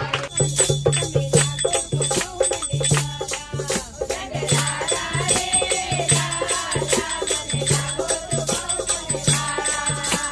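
A group of women singing a bhajan (Hindu devotional song) in chorus. A dholak drum beats a steady rhythm under it, with tambourine jingles and hand-clapping.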